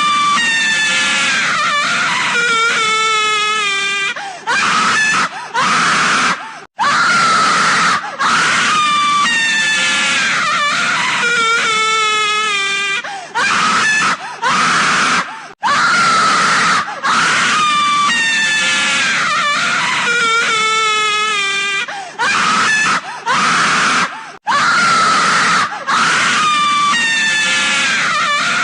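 Loud, distorted EAS-style alarm audio made of a screaming-like sound with falling and wavering pitched tones over harsh noise. It loops about every eight and a half seconds, with short dropouts between its parts.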